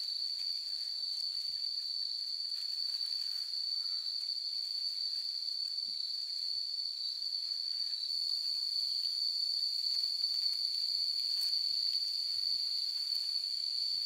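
Steady high-pitched insect drone, one unbroken tone, with a few faint soft knocks and rustles underneath.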